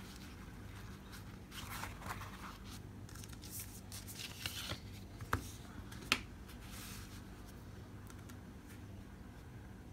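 Soft rustling and handling as a paper towel is spread out and a metal nail-stamping plate is laid on it, with two sharp clicks under a second apart near the middle as the plate is set down. A faint steady hum sits underneath.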